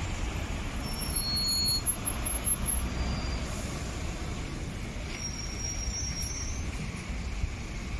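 Street traffic in a slow queue of cars, vans and lorries, a steady low rumble. Faint high-pitched squeals come in briefly, about a second in and again around five seconds in.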